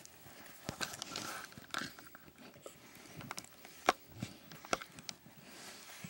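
Pug–Boston terrier mix and German shorthaired pointer play-biting on bedding: mouthing and chewing sounds with scattered sharp clicks, the sharpest about four seconds in.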